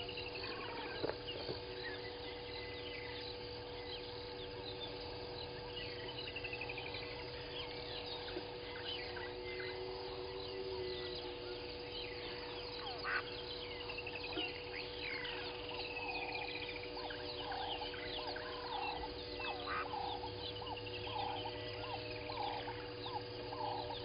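Several wild birds calling together, with high, quick descending trills. From about halfway, a run of lower calls repeats roughly twice a second over a steady faint hum.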